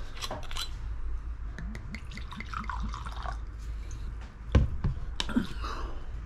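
Close-up eating sounds: wet chewing and smacking of someone eating fish cake in a saucy stew, with scattered small clicks and one sharp knock about four and a half seconds in.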